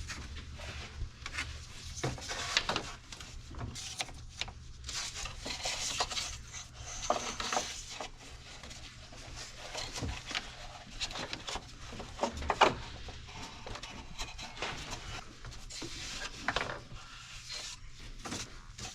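Hands feeding a new drive belt around the engine's pulleys: rubber rubbing and scraping against the pulleys, with scattered light knocks and clicks, over a steady low hum.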